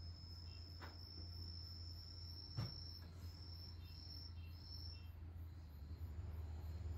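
An insect singing a steady, high-pitched trill that breaks into short pulses midway, then goes steady again. A soft knock a little past two and a half seconds in is the loudest single sound.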